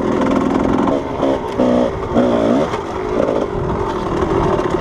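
Kawasaki KDX220's two-stroke single-cylinder engine revving up and down, its pitch climbing in several short pulls and dropping back between them.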